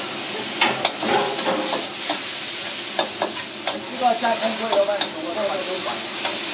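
Onions and sauce sizzling in a hot wok while a metal spatula stirs and scrapes through them, with a few sharp clanks of the spatula against the wok.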